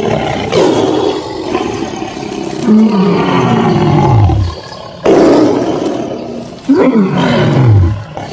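Deep animal roars: two long calls, each falling steadily in pitch, with rough, noisy roaring between them.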